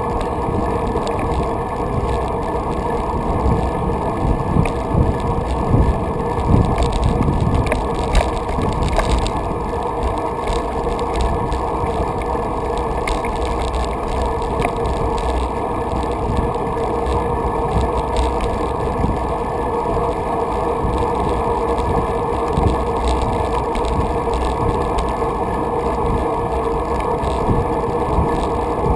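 Wind rushing over a GoPro's microphone and a bicycle's tyres rolling on a paved trail, steady, with a few louder gusts a few seconds in.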